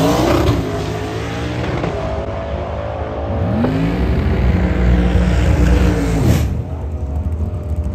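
Twin-turbo manual drag car's engine under hard acceleration down the strip. Its pitch climbs, jumps up again about three and a half seconds in, then holds. The engine sound drops away suddenly a little after six seconds, leaving a quieter steady hum.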